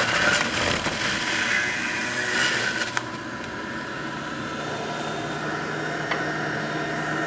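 Breville multi-speed juicer's motor running on its soft-fruit setting, grinding mango as it is pushed down the feed chute. About three seconds in the grinding stops and the machine runs on with an even hum.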